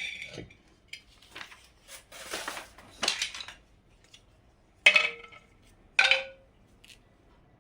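Earthen clay pot being handled: scraping and rubbing, then two sharp ringing knocks about a second apart, as pot and lid are set down or tapped.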